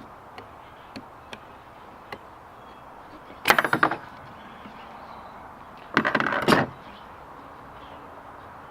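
Two short bursts of rapid ratchet clicking, about two and a half seconds apart, after a few light clicks. A ratchet is turning the screw inside a Ford Escape rear brake caliper to wind the parking-brake piston out.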